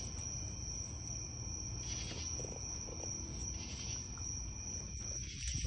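Insects chirring in a steady, high-pitched, unbroken trill over a low background rumble.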